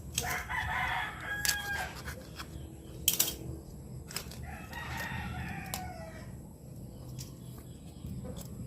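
A rooster crowing twice, the first crow right at the start and the second about four and a half seconds in, with a few sharp clicks in between, the loudest about three seconds in.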